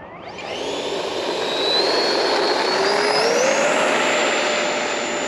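The twin 64 mm electric ducted fans of a Freewing F-22 RC jet throttling up for takeoff: a whooshing whine that climbs in pitch and loudness over the first three to four seconds, then holds steady at full power.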